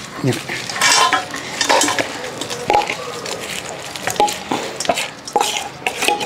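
A steel spoon scrapes and clinks against stainless-steel bowls as spiced raw-mango pieces are scooped and slid from one bowl into another. It comes as a run of short scrapes and metallic clinks, some of them ringing briefly.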